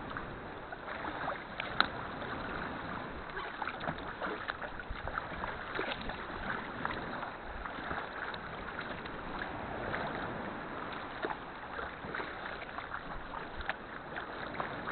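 Kayak paddling on calm sea: the paddle dipping and water splashing and lapping against the hull in a steady wash of small, irregular splashes.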